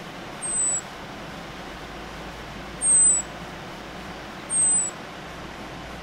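Three short, high, thin whistled calls from a small bird, each falling slightly in pitch, about half a second in, at three seconds and near the end, over a steady hiss of running river water.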